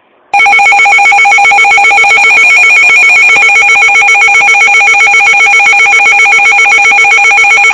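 Emergency Alert System attention signal: the loud two-tone alarm, a harsh, buzzing steady tone that begins about a third of a second in and holds for about seven seconds before cutting off. It announces that a new emergency alert message is about to be read.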